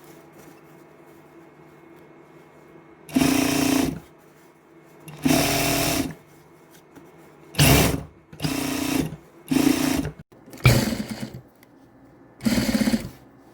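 Electric sewing machine stitching in short stop-start runs, about seven of them, each under a second. It is sewing a replacement zipper into a jacket.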